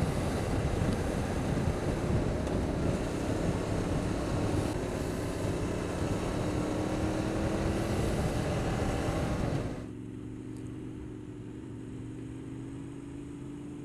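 Motorcycle under way, its engine running beneath heavy wind rush on the camera microphone. About ten seconds in, the wind noise drops away suddenly, leaving a quieter, steady engine hum.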